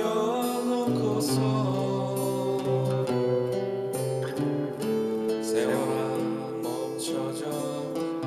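Steel-string acoustic guitar playing a melodic lead solo line over held low notes, some notes wavering in pitch.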